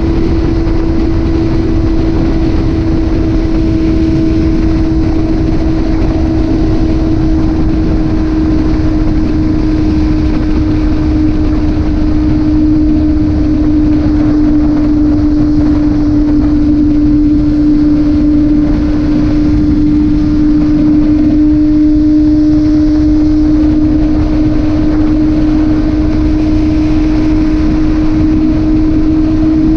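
Motorcycle engine running steadily at cruising speed, its drone holding an almost constant pitch, with heavy wind rushing over the microphone.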